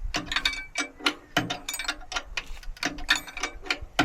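Irregular metallic clicks and clinks of hand tools working on the steel idler wheel assembly of a mini skid steer's track, a few a second, some with a short ring, as a bolt is worked into place.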